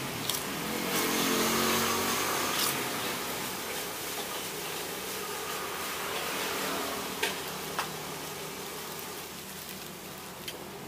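Fried rice sizzling in a street-stall wok, with a few sharp clicks, over the engine noise of passing traffic that is loudest a second or two in.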